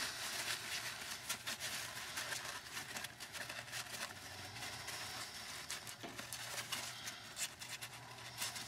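Rough paper shop towel rubbed and crumpled by gloved hands around small bolts to dry them: a faint, uneven rustle with many small scattered clicks.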